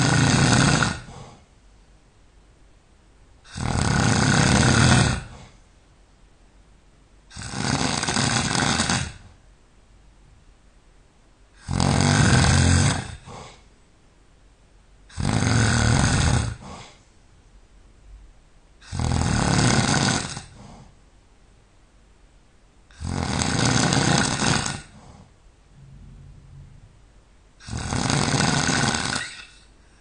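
A person snoring loudly and regularly in deep sleep, one long rasping snore about every four seconds, eight in all. The uploader puts the loudness down to being relaxed.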